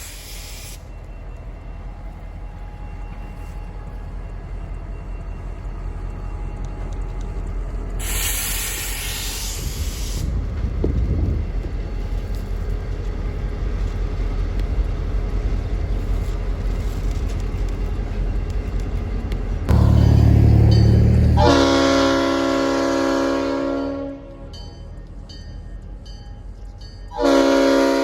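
Mississippi Export Railroad diesel locomotives running light with a steady engine rumble and a short hiss of air. Near the end the horn sounds twice: one blast of a couple of seconds, then another starting just before the end.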